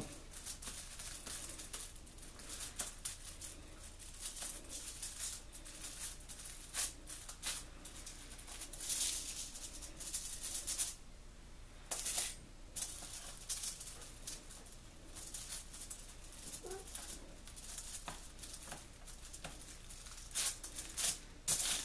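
Aluminium foil crinkling and rustling in irregular bursts as hands roll and pinch pizza-crust dough on a foil-lined baking sheet, with a short lull about halfway through.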